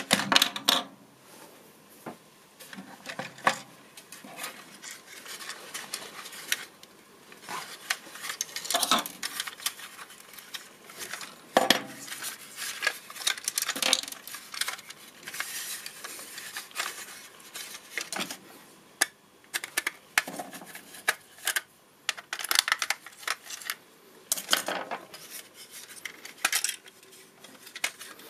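Irregular clicks and clatter of a 1:24 scale model Audi R8 being handled and taken apart by hand: small metal and plastic parts knocking together and being set down on the table.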